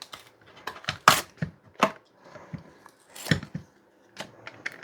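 A string of irregular sharp clicks and knocks, nine or so, the loudest about a second in and again after three seconds: a steel D-lock and its packaging being handled and worked open by hand.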